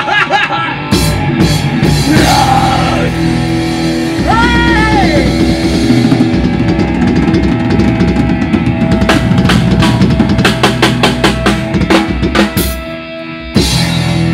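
Drum kit played hard with bass drum, snare and cymbals over a heavy metal backing track, with a few bent, gliding notes early on. A fast run of drum hits comes past the middle, then a brief lull and a loud hit just before the end.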